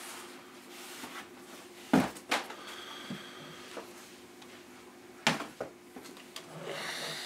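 Sharp knocks on a wooden tabletop as a DSLR camera body is set down, two close together about two seconds in, then two more a few seconds later.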